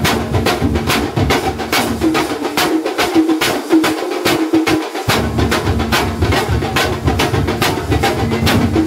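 Thambolam drum troupe playing: large frame drums and smaller stick-beaten drums pound out a fast, steady beat of about four to five strokes a second, with hand cymbals clashing. The deep drum strokes drop out for a couple of seconds in the middle, then come back.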